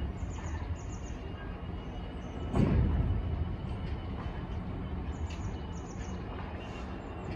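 Freight train of bogie hopper wagons rolling past: a steady rumble of steel wheels on rail, with a louder clatter about two and a half seconds in as a bogie runs over the rails.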